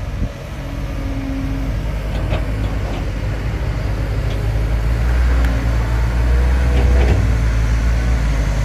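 Diesel dump truck engine running under load as the truck comes up a rough dirt track, a low rumble growing louder as it approaches, with a few short knocks.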